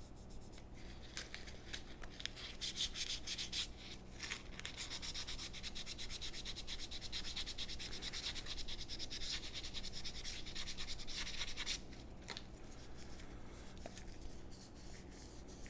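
Sandpaper folded over a fingertip rubbed rapidly back and forth on a wooden revolver stock, a quick run of short scratchy strokes, quieter for the last few seconds. It is knocking off the high spots so the two grip panels meet in a smooth transition.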